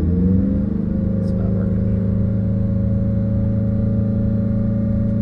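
Bus engine just after start-up, its revs falling and settling into a steady idle about half a second in.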